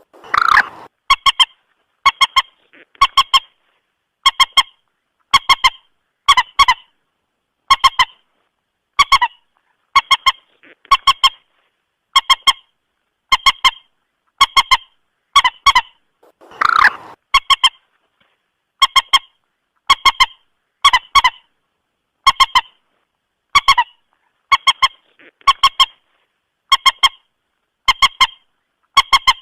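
Common moorhen (mandar batu) calls played as a bird-lure recording: short, sharp paired calls repeating about once a second. A longer, louder call comes about half a second in and again near the middle.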